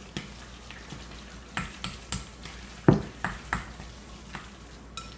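A utensil stirring wet minced beef in a glass bowl, with irregular clicks and knocks against the glass and the loudest knock nearly three seconds in.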